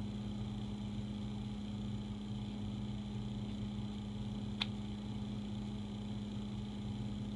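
Steady low background hum with one short click about four and a half seconds in.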